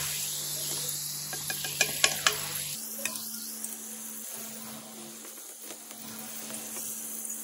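Potato fries sizzling in hot oil in a deep pan, with a few light clicks about two seconds in as a plastic slotted spoon scoops them out. The sizzle slowly eases off.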